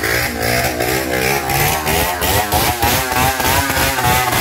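Several motorcycle engines revving, their pitch rising and falling over and over, settling into a steadier, higher note near the end.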